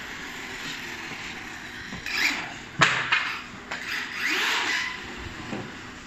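RC monster truck driving over paving, its motor whining up and down in pitch as it speeds up and slows. A few sharp knocks come near the middle, the loudest about three seconds in.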